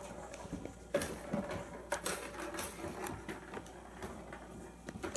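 Plastic balls rattling and clicking around the tracks of a tiered cat ball-track toy as a kitten bats at them, with a few sharper knocks.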